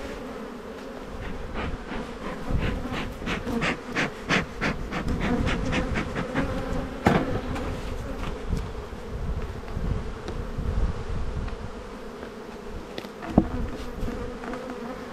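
Honeybees buzzing steadily in and around an open Langstroth hive, with a run of clicks and knocks as hive boxes, frames and cover are handled; a sharp knock about seven seconds in and another near the end.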